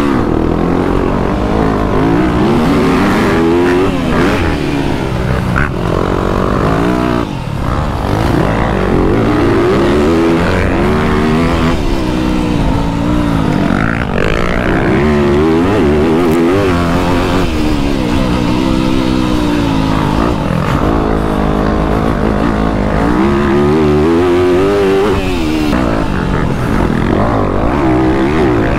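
Motocross bike engine being ridden hard, its pitch climbing under throttle and dropping off again over and over as the rider accelerates, shifts and brakes through the track's turns.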